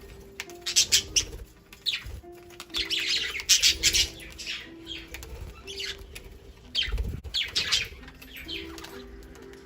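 Several budgerigars chirping and squawking in quick, loud, sharp bursts as they squabble over food, with low sustained notes of background music underneath.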